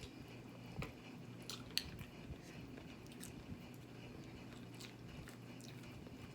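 Faint eating sounds: scattered small clicks and cracks of shellfish shells being broken and eaten, with chewing, over a low steady hum.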